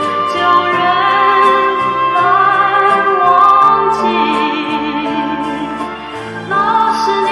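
Music: a singer with a wavering vibrato held over sustained instrumental accompaniment with a bass line.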